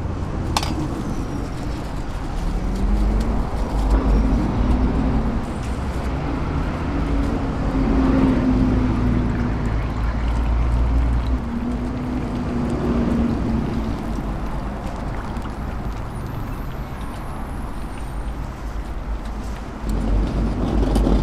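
Steady low rumble of street noise with vehicle engines, growing louder near the end.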